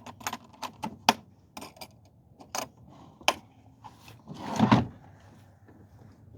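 Handling noises: a quick run of sharp clicks and clatters, like small hard objects being picked up and knocked together, then a louder rustling knock about four and a half seconds in.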